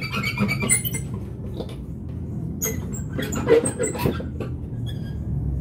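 Heavy fabric curtains being pushed aside by hand: rustling with two clusters of short, squeaky scrapes and clicks, one at the start and one about three to four seconds in.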